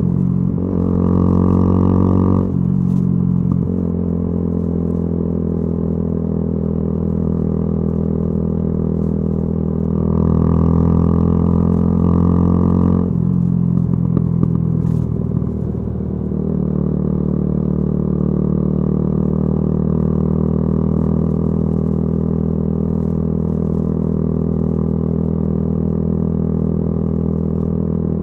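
Yamaha YZF-R125's single-cylinder four-stroke engine running through a modified exhaust while the bike is ridden. The note swells twice, for the first couple of seconds and again about ten seconds in. Each time it drops off suddenly, then it settles to a steady cruising note for the last dozen seconds.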